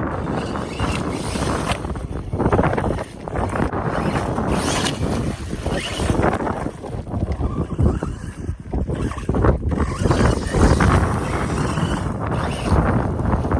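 Strong gusty wind buffeting the microphone: a heavy rumble with a rushing hiss that surges and drops, easing briefly about three seconds in and again around eight seconds.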